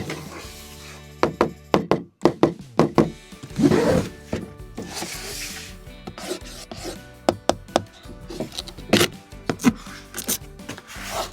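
Small diecast model trucks being handled, with irregular clicks, knocks and scraping of the metal and plastic parts over soft background music.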